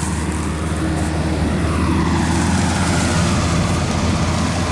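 Rice combine harvester running steadily: a continuous low engine drone with a rushing hiss of machinery over it.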